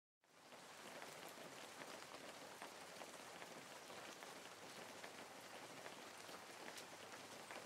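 Near silence: a faint, steady hiss of room tone with scattered light ticks, starting suddenly just after the start.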